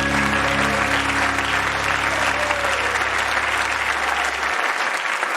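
Congregation applauding and cheering as the band's last chord rings out and fades, the low notes stopping about four seconds in.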